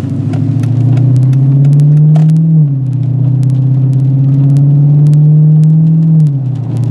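Dodge Challenger SRT8's 392 Hemi V8 through a Flowmaster exhaust, heard from inside the cabin under hard acceleration. The engine note climbs, drops at an automatic upshift about two and a half seconds in, climbs again and drops at a second upshift near the end.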